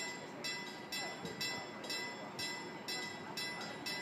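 Railway level crossing warning bell ringing steadily, about two strokes a second, warning of an approaching train as the barriers begin to lower.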